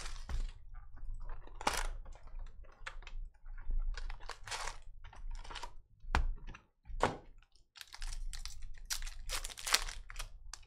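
Trading-card packaging and cards handled by hand: irregular rustles, crinkles and light clicks as a hobby box is opened and cards are pulled out and shuffled.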